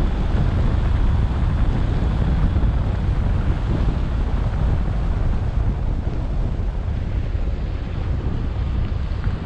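Steady wind noise on an action camera's microphone mounted on a moving vehicle, a deep, even noise with no distinct tones or knocks.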